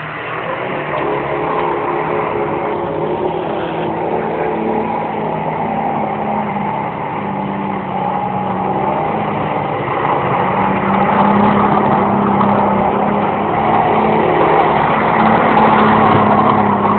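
Holden VC Commodore doing a burnout: the engine held at high revs with the rear tyres spinning, a steady engine note over a rush of tyre noise, growing gradually louder.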